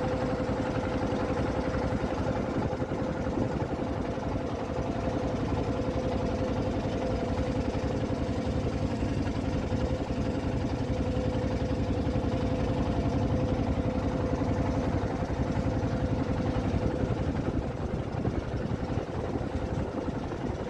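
Small engine of a ketek river motorboat running steadily, with an even drone and a constant mid-pitched hum.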